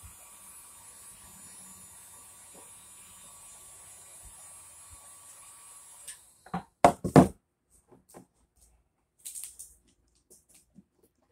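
Electric heat gun running with a steady whine and hiss, switched off about six seconds in. A few loud knocks follow as it is set down, then faint scrapes of vinyl wrap being smoothed by hand.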